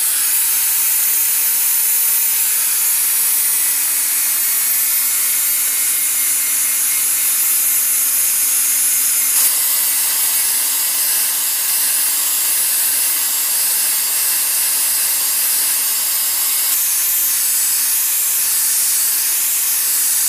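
Handheld angle grinder running steadily, its disc grinding the steel edge of a two-handled bark knife. A loud high hiss rides over a steady motor hum, with a slight change in tone about halfway through.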